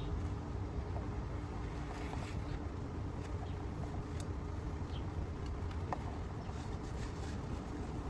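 Steady low background rumble and hum, with a few faint light clicks and taps from plastic animatronic parts being handled during assembly.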